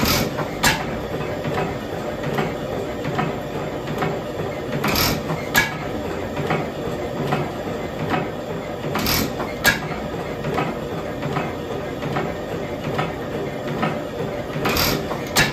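Early-1900s Nayler hot-tube oil engine running with a steady mechanical clatter. Every four to five seconds comes a pair of sharp cracks about half a second apart. The inlet valve seats are freshly repaired and the exhaust valve clearances newly set.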